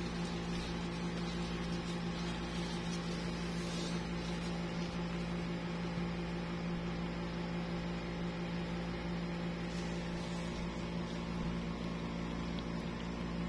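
Steady machine hum: one constant low droning pitch with overtones, unchanging throughout.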